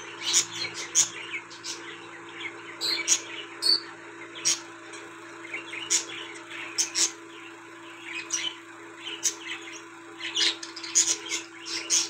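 Budgerigars chirping in many short, sharp, irregular calls, over a faint steady hum.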